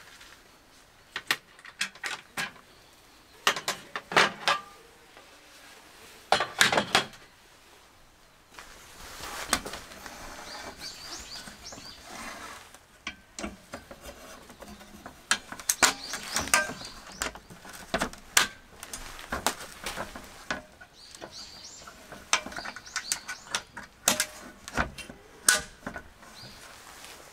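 Scattered clacks, knocks and short rattles as gloved hands handle, set and latch perforated cargo panels in a vehicle's rear load area, with rustling in between. Birds chirp faintly now and then.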